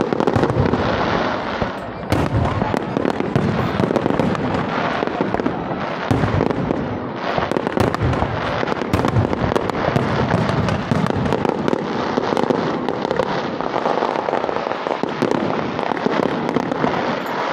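Aerial fireworks display: a dense, continuous barrage of shell bursts and crackling, bangs coming several a second with no let-up.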